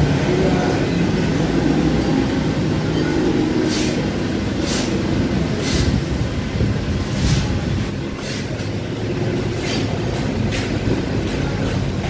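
Metal cutlery clinking and scraping on plates, a string of sharp clinks from about four seconds in, over a steady low rumble.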